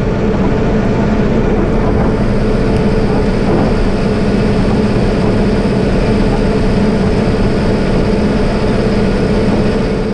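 Farm tractor engine running steadily while towing a grain wagon of corn, an even drone with no change in speed.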